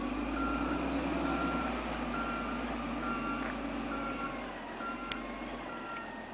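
Vehicle reversing alarm sounding seven steady single-tone beeps, about one a second, over a low engine rumble, while a loader handles round hay bales. The beeps stop near the end.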